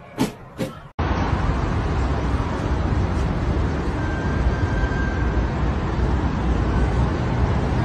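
Music with a regular beat for about the first second, then a sudden cut to a loud, steady noise with a heavy low rumble.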